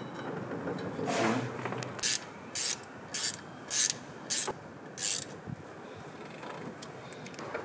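Socket ratchet clicking in six short back-swing bursts, a little over half a second apart, while turning the nuts on the propshaft flange behind the handbrake drum. A softer scrape of tool against metal comes about a second in, before the clicking starts.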